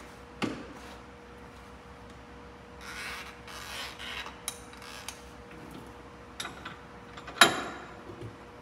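Metal tools being handled against a bus's front wheel hub during kingpin removal: a knock, a stretch of rubbing and scraping, and scattered clicks, with one loud sharp metal clank near the end.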